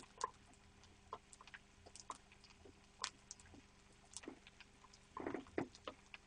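Faint, scattered clicks and light taps of wooden chopsticks prodding boiled pork in a steel pot, testing whether it is cooked through, with a denser run of taps about five seconds in.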